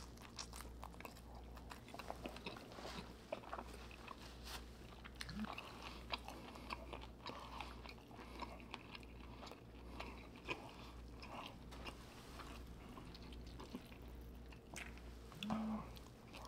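Faint, close-miked chewing and biting of a saucy seafood boil, with many small wet clicks and smacks scattered irregularly, over a steady low hum.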